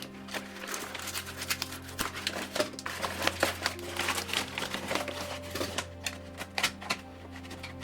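Hands handling product packaging: a quick run of clicks, taps and crinkles of cardboard and plastic over a steady low hum.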